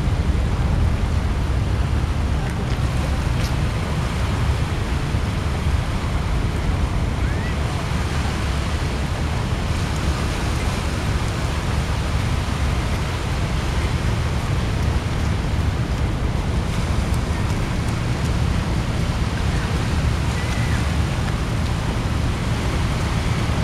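Wind buffeting a compact camera's built-in microphone: a steady, fluttering low rumble over a soft seaside hiss.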